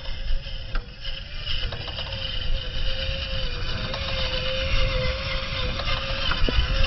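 Electric motor and gears of an RC scale crawler truck whining steadily as it drives up loose sand, with wind rumbling on the microphone.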